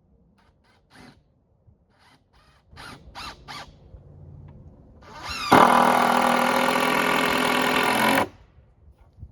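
A power drill-driver sinking a deck screw into a wooden board, running at a steady high whine for a couple of seconds and stopping abruptly, after a few light knocks from handling the boards.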